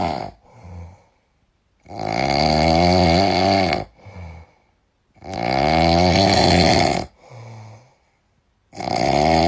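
A person snoring loudly and rhythmically. Long, rasping snores of nearly two seconds come about every three and a half seconds, each followed by a shorter, much softer breath and a brief pause.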